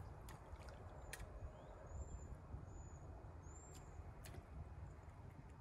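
Quiet outdoor ambience: a bird gives three short, high chirps less than a second apart, over a faint low rumble with a few soft clicks.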